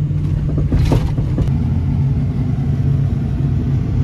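Pickup truck engine and rolling noise heard from inside the cab, a steady low hum as the truck moves slowly over gravel, with a few light knocks about a second in.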